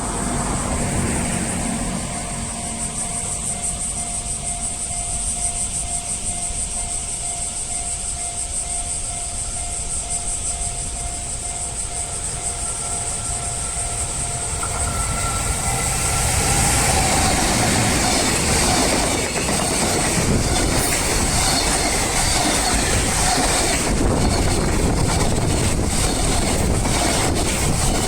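Japanese level crossing warning bell ringing steadily, then about 16 seconds in a freight train hauled by a JR Freight EF210 electric locomotive passes close by and drowns it out. In the second half the wagons' wheels clack over the rail joints.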